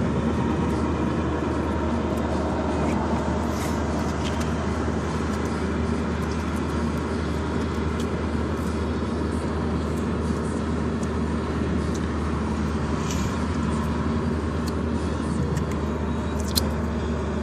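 Steady low rumble and hum with a few faint clicks, like a vehicle's interior road noise.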